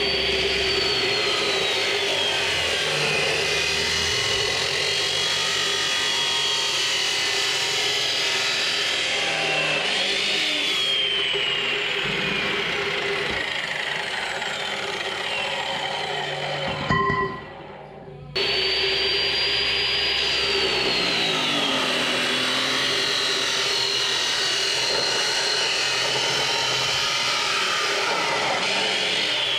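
Electric power tool cutting steel tubing: a high whine that drops in pitch as the cut loads it and climbs back when the load eases, stopping briefly a little past halfway before starting again and dropping under load once more.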